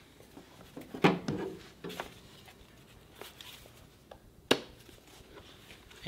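Items knocking and clattering against a plastic toolbox as it is rummaged through, a few scattered knocks with one sharp click about four and a half seconds in.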